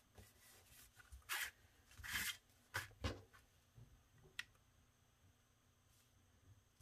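Cardstock paper envelopes rustling and sliding against each other as they are handled, with a few short rustles in the first three seconds and a single light click a little after four seconds in.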